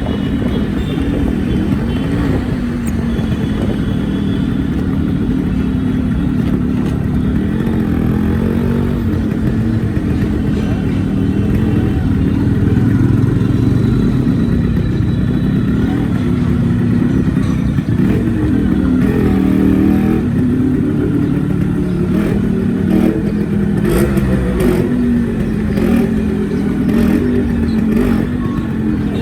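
Yamaha RX100's two-stroke single-cylinder engine running, its pitch rising and falling as the throttle changes.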